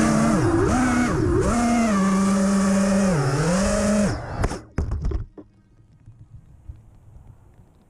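FPV quadcopter's brushless motors whining, the pitch rising and falling as the throttle changes, then cutting out abruptly about four seconds in after a few short sputters, leaving only faint scattered ticks.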